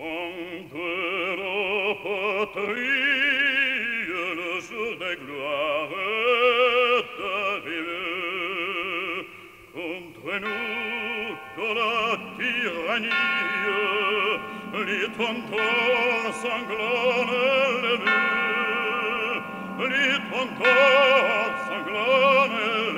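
Dramatic film score: operatic singing with a heavy, wide vibrato. About ten seconds in, held instrumental chords join underneath.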